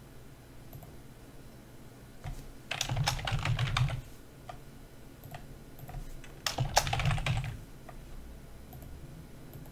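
Typing on a computer keyboard: two quick bursts of keystrokes, each a little over a second long and about three seconds apart, with a few single clicks in between.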